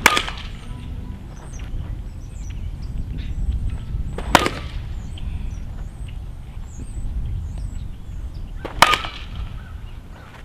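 Softball bat hitting the ball three times, about four and a half seconds apart, each a sharp crack with a short ring.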